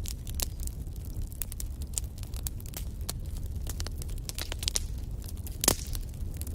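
Fireplace fire crackling: a steady low rumble of flames with many quick snaps, and one louder pop near the end.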